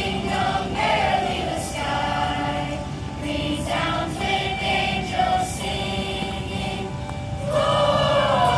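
Middle-school choir singing, with some steadier held tones underneath. The singing swells louder about seven and a half seconds in.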